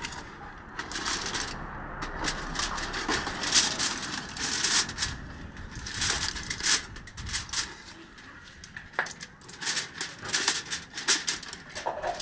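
Aluminium foil crinkling and rustling as it is peeled back off a disposable foil pan, in irregular runs of sharp crackles.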